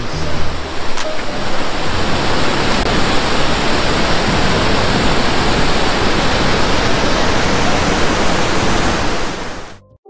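Waterfall and river rapids over rocks, water rushing steadily in a dense, even wash of noise that cuts off suddenly near the end.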